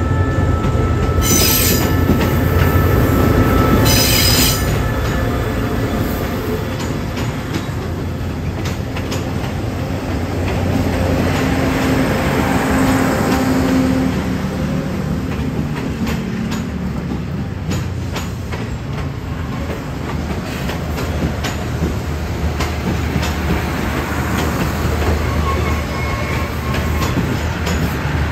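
Express passenger train rolling slowly into a station platform, its coaches' wheels clicking over rail joints under a continuous low rumble. A thin steady squeal runs through the first few seconds, and two short hisses come about a second and four seconds in.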